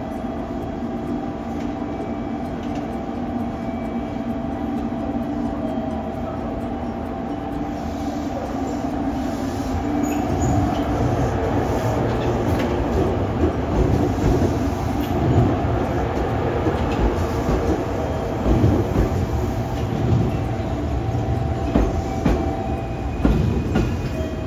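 Train running on rails: a steady hum at first, then from about ten seconds in louder rumbling with irregular clatter of wheels over the rails.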